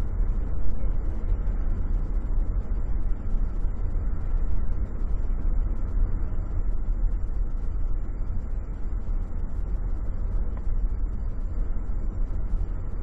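Steady road and engine rumble inside a moving car's cabin, heaviest in the low end.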